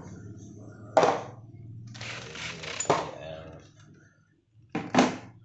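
Metal hand tools being handled and set down, with three sharp clinking knocks about a second in, near three seconds and near five seconds, and rustling between them.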